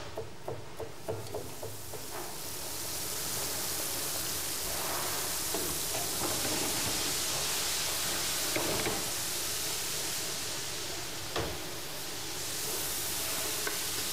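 Chef's knife chopping vegetables on a cutting board, about three quick strokes a second, for the first two seconds; then food sizzling loudly in a frying pan on a gas range while it is stirred, with a single sharp knock about eleven seconds in.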